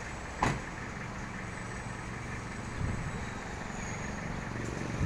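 Truck engine idling steadily, with one sharp knock about half a second in and a fainter one near the end.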